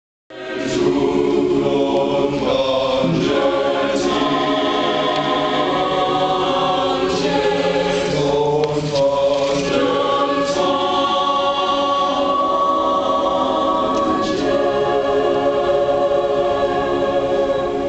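Chamber choir singing a cappella, several voice parts in sustained chords.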